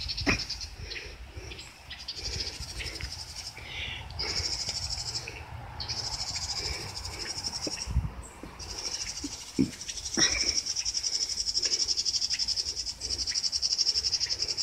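Outdoor ambience dominated by insects buzzing in a steady, fast-pulsing high trill that drops out briefly a few times, over a low wind rumble on the microphone, with a few short chirps.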